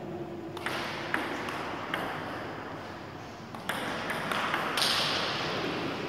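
Table tennis rally: a celluloid ball clicking sharply off rubber bats and bouncing on the table in an irregular series of hits. About five seconds in there is a brief, louder rush of noise.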